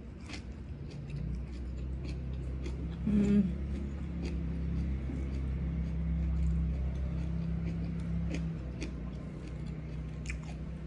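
Close-up eating sounds: chewing and small wet mouth clicks as rice and raw leafy greens are eaten by hand. A low steady hum runs underneath from about a second in, and there is a short hum of the voice about three seconds in.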